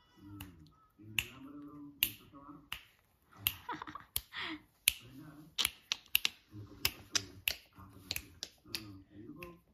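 Sharp clicks repeated irregularly, about two a second, with a low wordless voice sounding between them.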